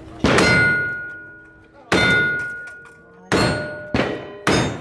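Five revolver shots at uneven spacing, the last three in quick succession, each followed by the fading ring of a struck steel target.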